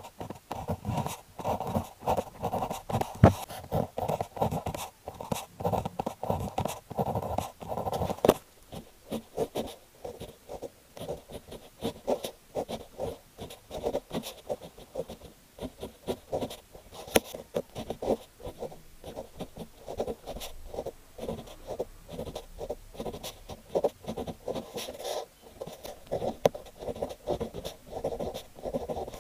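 Fineliner pen nib scratching across paper in quick, irregular strokes as characters are handwritten. The strokes run dense for about the first third, then come more spaced out.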